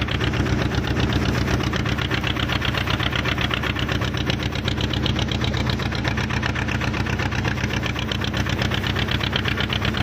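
A fishing boat's inboard engine running steadily under way, with a fast, even beat of engine pulses over a steady low drone.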